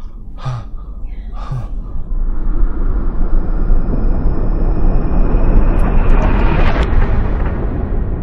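Two short coughs, then a deep cinematic rumble swells up over a couple of seconds, holds, and fades away near the end: a sound-design transition swell.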